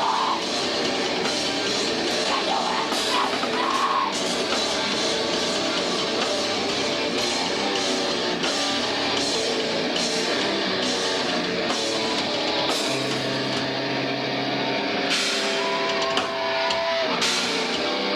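Rock band playing live: electric guitar, bass and drum kit with repeated cymbal strokes.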